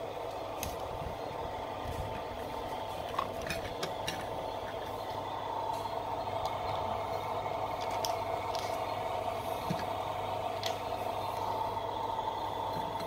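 A steady whirring hiss runs throughout, with scattered light clicks and taps of plastic toy cookware and utensils being handled.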